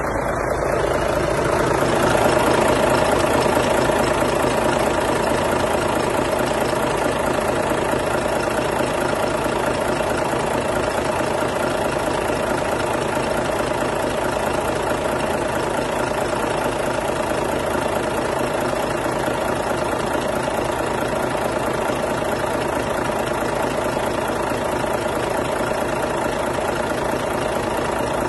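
Volvo FH 500 truck's 13-litre straight-six diesel engine idling steadily, heard up close at the engine bay behind the cab.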